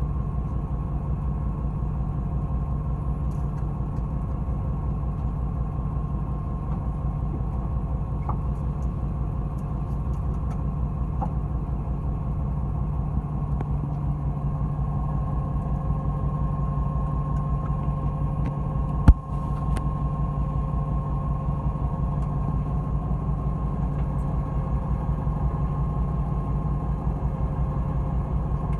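A fishing boat's engine running steadily with a low hum, and a single sharp knock about two-thirds of the way through.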